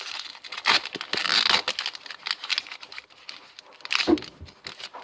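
Foil Pokémon booster pack wrapper crinkling and tearing open: a run of dense crackles, loudest about a second in, with a sharper knock near the end.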